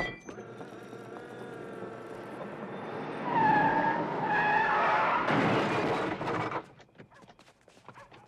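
A car's engine running and slowly growing louder, then a loud squeal like tyres skidding with a rush of noise for about three seconds, cutting off sharply near the end.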